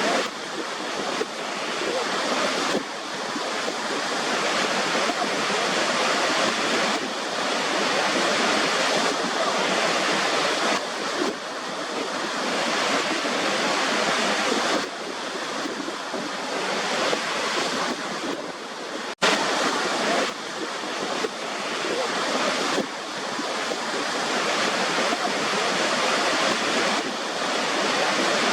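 Waterfall: a steady rush of falling water, wavering slightly in level, broken once by a momentary gap about two-thirds of the way through.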